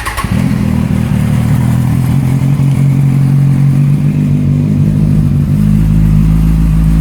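2014 Kawasaki Ninja 1000's inline-four engine cold-started with its stock mufflers removed, catching almost at once and idling steadily through the bare collector. The note deepens a little about five and a half seconds in.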